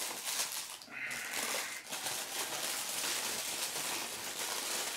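Plastic packaging crinkling and rustling steadily while it is handled and pulled away during unboxing.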